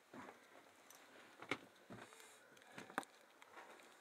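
Faint handling noise: soft rustling of a protective suit and gloves against old timber, with a few light clicks and knocks, the sharpest about one and a half and three seconds in.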